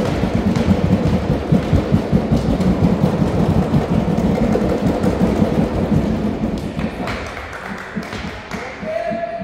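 Loud, echoing rumble of thumps and voices in a basketball gym, easing off near the end.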